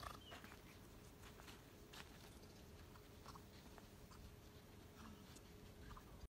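Near silence, with a few faint scattered clicks and ticks.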